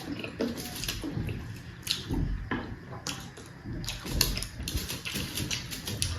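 Eating sounds: irregular wet mouth clicks and smacks of people chewing rice and pork curry eaten by hand, with a few soft low thuds.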